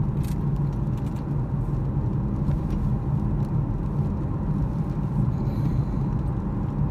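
Steady road and engine noise inside a car's cabin while driving on a rain-wet road, with a few faint, irregular ticks.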